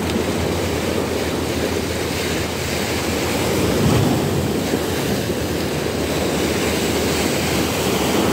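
Choppy sea washing against the shore, with wind on the microphone: a steady noise with no breaks.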